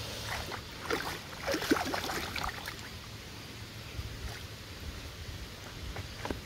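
Water splashing in the shallows as a hooked channel catfish thrashes at the surface, with a run of irregular splashes in the first two or three seconds, then calmer sloshing.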